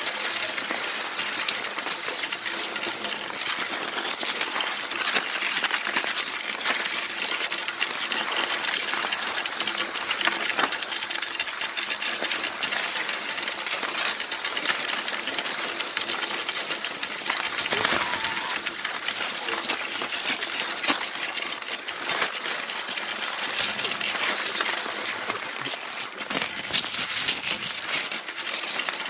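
Cross-country skis scraping and crunching over hard, packed snow, with many small clicks from pole tips striking the crust.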